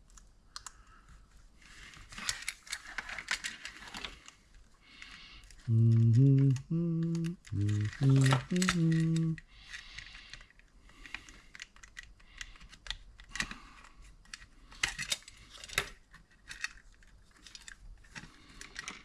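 Small clicks, taps and rustles of hands working on the power supply's parts and wires. About six seconds in, a man hums a short tune of several held notes, louder than the clicking, for about three seconds.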